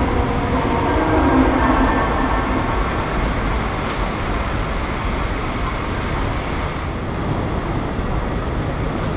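Steady, loud rumbling noise of a busy airport departure hall, with a few held tones dying away about two seconds in.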